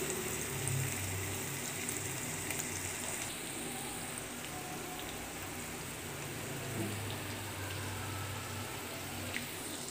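Chicken pieces frying in oil in a kadai, a steady sizzle.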